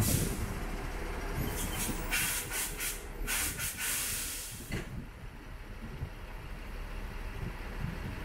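Concrete boom-pump truck with its engine running and compressed air hissing from its air system, pulsing several times before cutting off about five seconds in. The engine then runs on alone at a low level.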